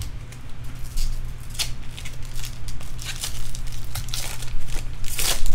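Trading cards and foil pack wrappers being handled: irregular crinkles, flicks and rustles, with a soft knock on the table at the start and a louder burst of rustling near the end.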